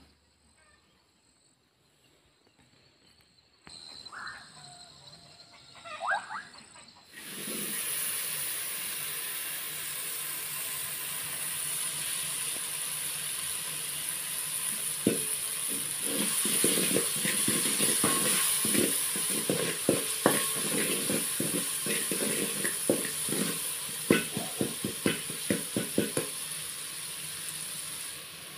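Chopped tomatoes frying in hot oil in a metal pot, a steady sizzle that starts about a quarter of the way in. From about halfway a wooden spoon stirs them, scraping and tapping against the pot in quick clicks.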